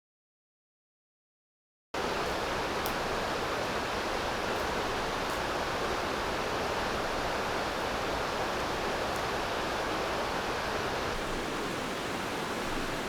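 Steady rushing of water, an even dense noise with no rhythm. It cuts in suddenly about two seconds in after silence and fades out near the end.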